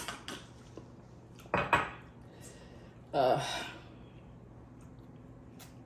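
A drinking glass is set down on a stone countertop, with clinks and knocks of glass and plates about a second and a half in. A brief vocal sound follows about three seconds in.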